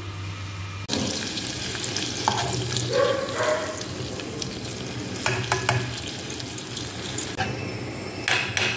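Butter melting and sizzling in an aluminium saucepan while a metal spoon stirs it, clicking and scraping against the pot. A low steady hum gives way to this about a second in, and the stirring grows louder near the end.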